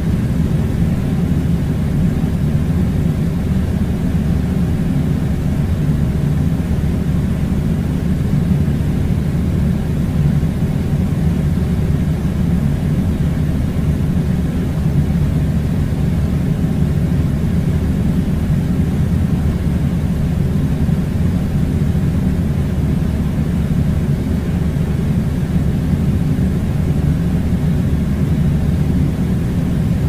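Air conditioner blowing: a loud, steady low rush of air that does not change.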